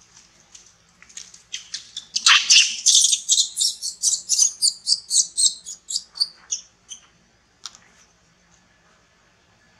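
Young macaque squealing in a rapid series of shrill, high-pitched cries while being handled roughly in play-fighting. The cries are loudest near the start, repeat about three times a second, and trail off after about six seconds.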